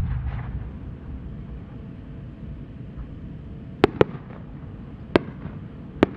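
Aerial fireworks shell fired from its mortar with one loud sharp boom and a low rumble after it. A few seconds later come about four separate sharp cracks from small bursts high up.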